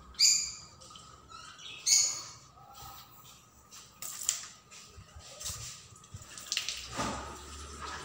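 A spatula stirring chicken curry in a non-stick pan: two short, high squeaks about a second and a half apart, then scattered light clicks and knocks, over a faint simmer.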